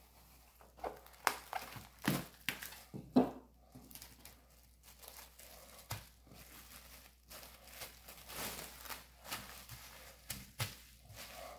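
Kitchen handling noises: irregular crinkling and rustling with scattered light knocks and taps, a few louder knocks in the first few seconds.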